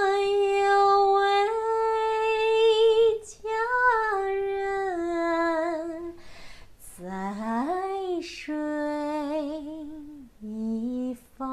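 A woman singing unaccompanied in a slow Chinese ballad style. She holds a long note that steps up partway, sings a falling phrase, slides up, then holds lower notes with vibrato.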